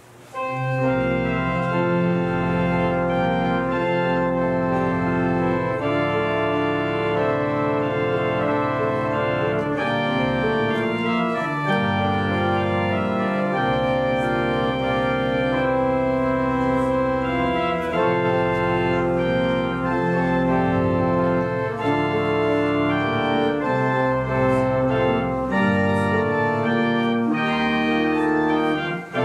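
Organ playing slow, sustained chords over a held bass line, starting about half a second in.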